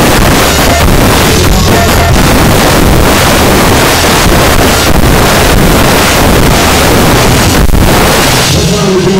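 Drum kit played hard, with a constant wash of cymbals over the drums, so loud that the recording is heavily distorted. The cymbal wash drops out near the end.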